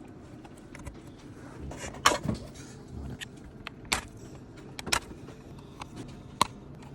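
Handling noise from small hard parts being worked by hand: a few sharp clicks and light knocks, about five spread over the seconds, with faint rattling between them.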